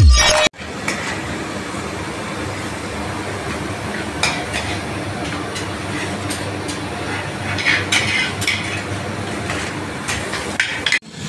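Kitchen background: a steady hiss with several short clinks of dishes and utensils. The last of an electronic music intro cuts off just before it.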